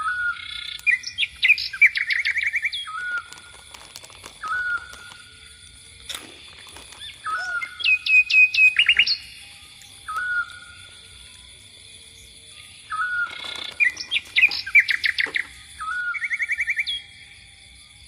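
Bird-like chirping: short hooked whistled notes alternating with fast trills, in bouts that repeat about every six seconds, over a steady high-pitched hum.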